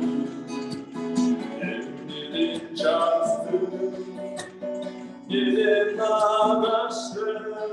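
A man singing to his own strummed acoustic guitar. The voice is strongest about three seconds in and again from about five seconds.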